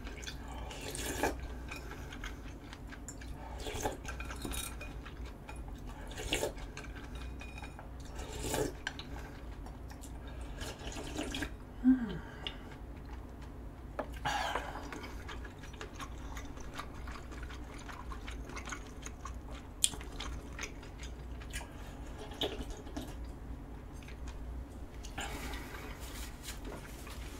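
Eating sounds: short slurps and chewing of stew broth and noodles, with chopsticks now and then clinking on a ceramic bowl, every few seconds over a low steady hum. A tissue rustles near the end.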